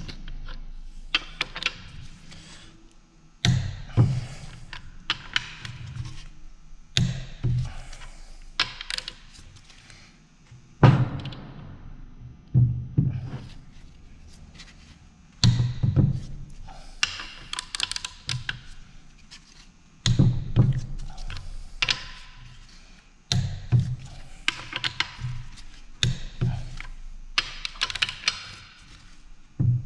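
Repeated clunks and knocks of metal tools and parts being handled on a differential, with short runs of sharp clicks.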